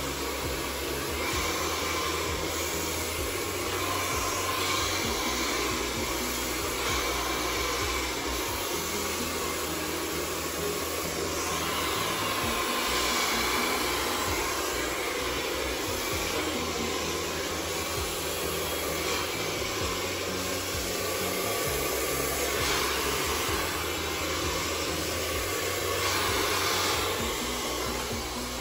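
Handheld hair dryer blowing steadily, its loudness swelling a little now and then as it is moved about the hair.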